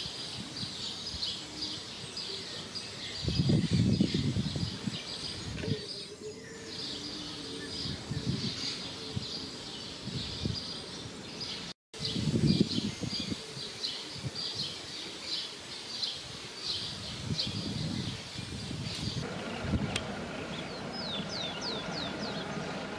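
Small birds chirping rapidly and without pause, high-pitched, with low rumbles now and then. The sound drops out briefly about halfway, and a few quick falling chirps come near the end.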